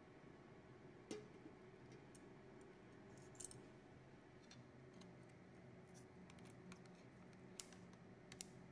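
Near silence with a few faint, scattered metallic clicks of stainless steel kitchen tongs against the pot and plate.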